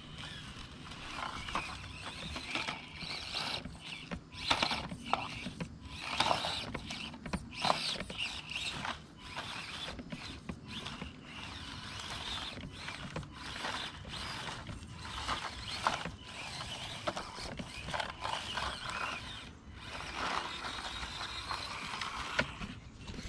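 Axial SCX24 1/24-scale RC crawler's small electric motor and geared drivetrain whirring on and off as it crawls over rocks and dry leaves, with short clicks and scrapes from the tyres and chassis on stone and leaves.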